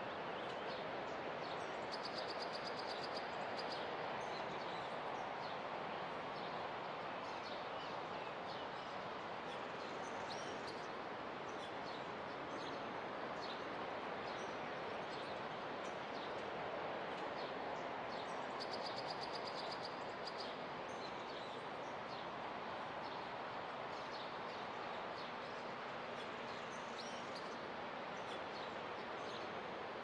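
Outdoor nature ambience: birds chirping over a steady wash of noise that slowly swells and eases. A short, fast trill is heard twice, about two seconds in and again near nineteen seconds.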